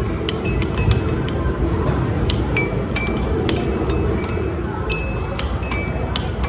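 Busy arcade game room: many sharp clinks, each trailed by a short ringing ding, come irregularly two or three times a second over a steady low hum of machines, with faint game music underneath.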